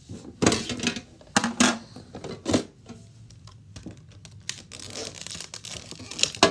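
Clear plastic packaging being handled and pulled from a cardboard box: rustling with a handful of sharp crinkles and clicks, several in the first two and a half seconds and one more near the end.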